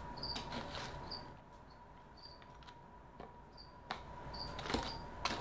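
Quiet room with faint, short high-pitched chirps recurring about once a second, over a faint steady hum. Near the end come a few light clicks of packaging being handled.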